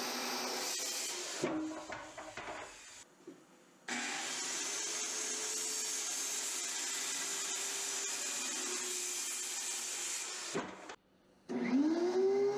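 Handheld circular saw ripping a hardwood board lengthwise, running steadily under load; it cuts out briefly about two seconds in, then runs on through the cut. Near the end a benchtop thickness planer's motor starts up with a rising whine that levels off.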